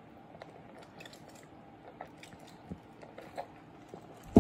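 A man sipping and swallowing Sprite from a paper cup: quiet slurps and small mouth clicks. Near the end comes a brief, loud vocal sound that falls in pitch.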